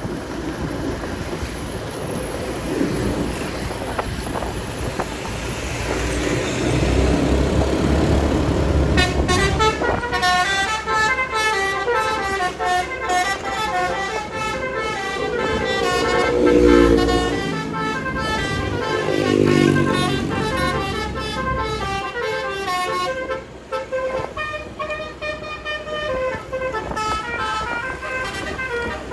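Minibus engine and traffic noise, then from about nine seconds in a telolet horn, a multi-tone musical horn, plays a stepping tune of overlapping notes that runs through the rest, with the engine noise swelling twice under it midway.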